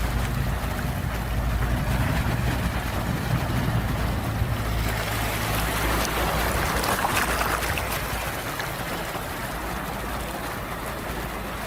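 Sea waves washing on the shore with a steady low rumble, the surf swelling about halfway through; a faint low hum sits under it in the first half.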